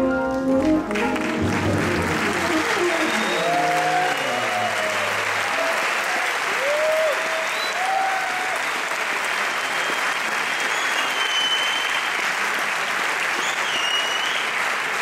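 A jazz band's last notes ringing out in the first second or two, then a theatre audience applauding steadily, with a few shouts and whistles.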